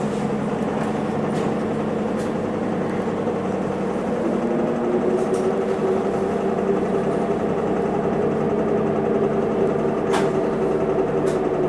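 Isuzu Erga city bus heard from inside the cabin, its diesel engine running with a steady drone; about four and a half seconds in, a higher engine note comes in, climbing slightly, and the sound grows a little louder as the engine works harder.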